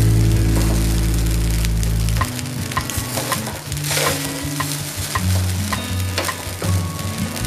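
Steel spoon stirring and scraping jeera rice in a stainless-steel pot, with scattered clinks of the spoon against the pot over a steady hiss. Background music with low notes plays underneath.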